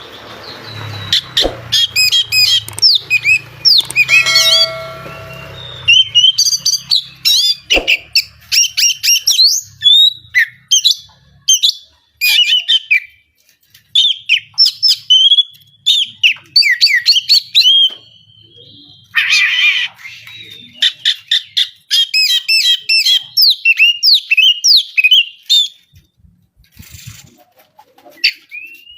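Oriental magpie-robin (kacer) singing hard: rapid, varied phrases of sliding whistles, chirps and harsh notes in bursts with short pauses. A low hum runs through the first six seconds, and a brief steady tone sounds about four seconds in.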